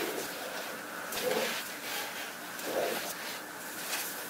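Cotton shoelace being drawn through the metal eyelets of a suede sneaker: soft rubbing swishes, two of them louder, with a few faint ticks.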